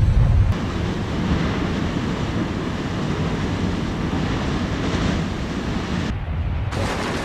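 Volcanic eruption sending up an ash column: a steady rushing rumble, with the upper hiss dropping out briefly about six seconds in.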